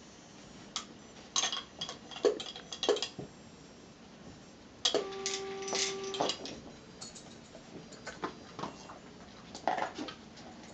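Homemade automated dog treat dispenser at work: sharp clicks and clatters from the pedal and from treats rattling out of a modified gumball machine. A steady tone sounds for about a second and a half near the middle.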